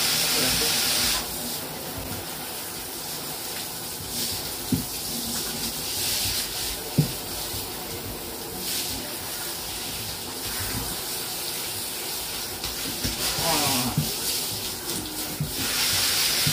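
Handheld shower head spraying water over a Shiba Inu puppy and the bathtub, a steady hiss. It is louder for about the first second and again near the end, with a couple of faint knocks in between.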